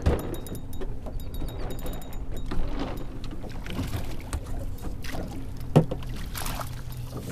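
Water slapping against a small fishing skiff's hull over a steady low hum, with scattered knocks on the boat and one sharp thump about six seconds in as the hooked yellow jack is scooped into a landing net.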